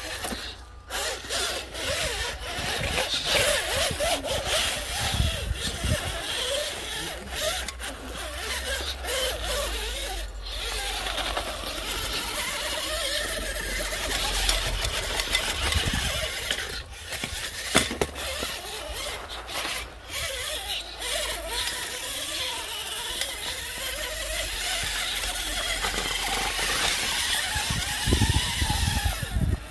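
Scale RC rock crawler's motor and gears whining under load as it climbs over rock, with its tyres scrabbling on the stone.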